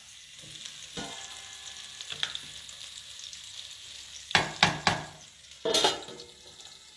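Cherry tomatoes and onion sizzling gently in oil in a frying pan, with a wooden spatula stirring and scraping against the pan in short strokes, the loudest cluster about four to six seconds in.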